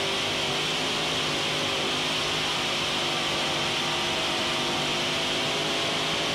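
Modified pulling tractor's three V8 engines running at high, steady revs, heard from onboard, with a loud high hiss over the engine note.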